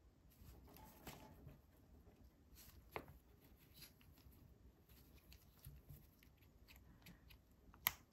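Faint rustle of nitrile-gloved hands handling LEGO minifigure parts, with a few small sharp plastic clicks as pieces are pressed together; the sharpest click comes near the end.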